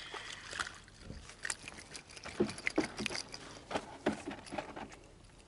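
Scattered clicks, taps and a few short squeaks of fishing tackle and hands at work as a small perch, just reeled in on a spinning lure, is lifted clear of the water and taken hold of on the line.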